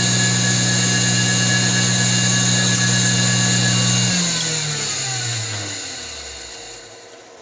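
Taig CR19 milling machine's motor running steadily, then switched off about four seconds in and spinning down, its hum falling in pitch and fading away.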